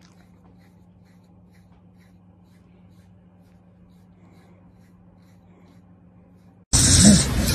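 Faint, soft scratching of a grooming brush stroked through a corgi's fur, about two strokes a second, over a low steady hum. Near the end a loud rushing noise starts suddenly.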